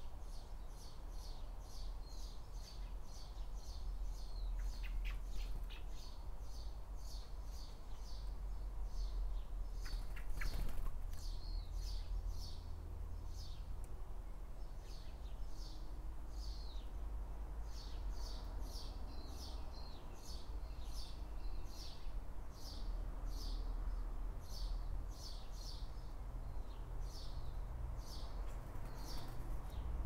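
Small birds chirping steadily, short high chirps repeating a few times a second, over a low steady rumble. A brief noise breaks in about ten seconds in.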